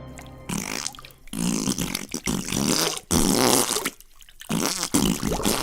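Wet, sputtering fart sound effect in several bursts with short breaks between them.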